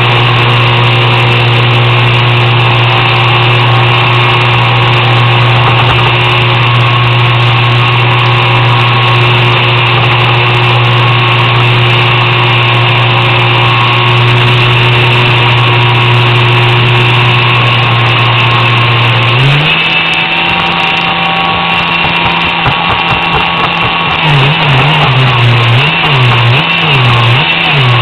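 RC swamp buggy's electric drive running: a 3900 kv brushless inrunner motor on a 4S LiPo, geared 3.6:1 to a 9x9 propeller, giving a steady drone. About two-thirds of the way through the pitch suddenly steps to a higher, thinner note, and near the end it wavers up and down several times.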